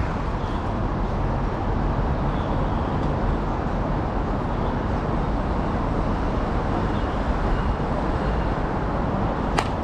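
Steady low outdoor background noise, with one sharp crack near the end.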